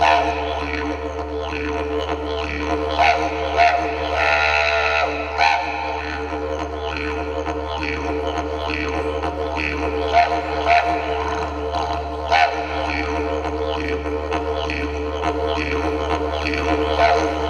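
Yidaki (didgeridoo) playing a continuous low drone, its overtones shifting in a rhythmic pattern, with a few short louder accents.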